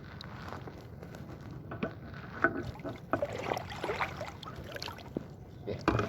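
Water sloshing and splashing, with scattered light knocks.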